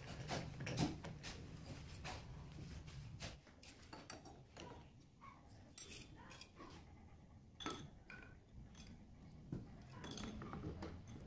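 Scattered light metallic clinks and knocks of steel hand tools against a small three-jaw chuck being fitted and tightened on a lathe's cross-slide, the loudest a little under a second in. A low hum stops about three seconds in.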